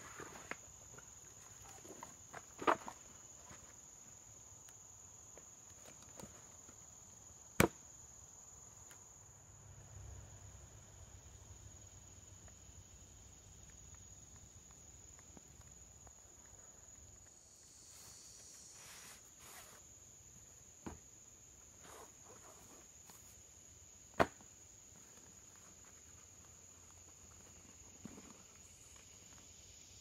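Steady high-pitched drone of insects in summer woods, with a few sharp clicks and knocks of camping gear being handled, the loudest about 3, 8 and 24 seconds in.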